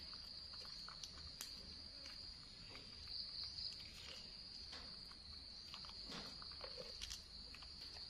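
Steady, high-pitched chirring of insects such as crickets, unbroken throughout, with scattered faint clicks and taps.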